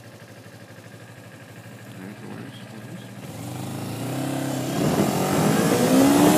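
Motorcycle engine idling at a stop, then pulling away about three seconds in, its pitch climbing as it accelerates. Wind noise on the microphone builds with speed.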